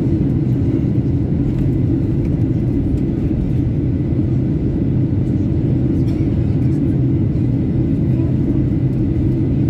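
Airliner interior noise: a loud, steady, low drone of engines and airflow heard from inside the aircraft, even throughout.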